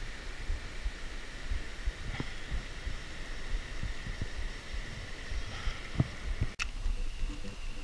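Handling noise of a spinning rod and reel being cranked on a lure retrieve from a kayak: irregular low knocks and rumble close to the microphone, with a faint steady high hum behind and a sharp click about six and a half seconds in.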